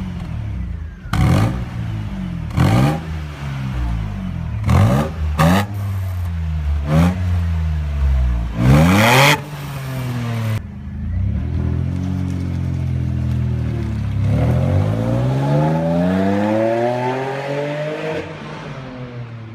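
Opel C25XE 2.5-litre 54-degree V6 revved in a series of quick, sharp blips, then, after a cut, pulled up through the revs in one long climb and let back down.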